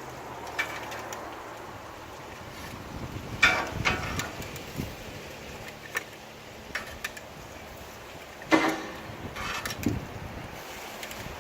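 Scattered knocks and clinks of metal skewers and utensils as grilled meatball skewers are lifted off the grill and set out on a board. The two loudest come about three and a half and eight and a half seconds in.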